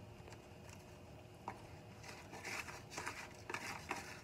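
Plastic food container being handled with both hands: faint light clicks and crinkles, busier in the second half.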